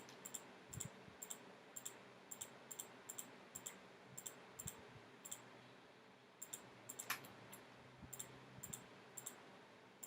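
Faint computer mouse clicks, about two a second, with a short pause near the middle and one louder click about two-thirds of the way through.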